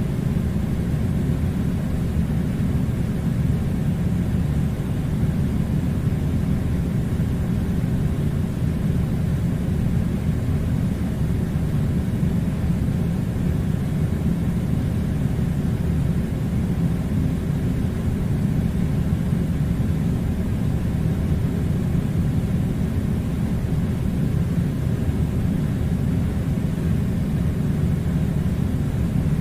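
Air conditioner running with a steady, low, even noise that does not change.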